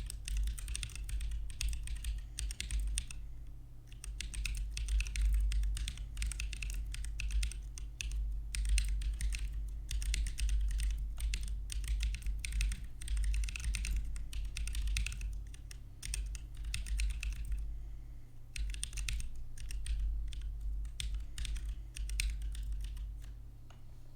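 Typing on a Keebio Iris split mechanical keyboard with Holy Panda tactile switches: quick runs of key clacks, with short pauses about three seconds in and again about two-thirds of the way through. The typing stops just before the end.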